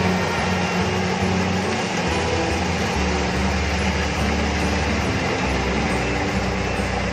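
Kubota rice combine harvester running steadily as it cuts standing rice: a continuous engine and machinery drone.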